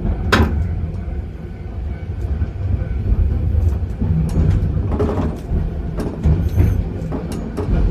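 Keifuku (Randen) Arashiyama Line tram running on its track, heard from inside the car: a steady low rumble with scattered sharp clicks, the loudest about half a second in.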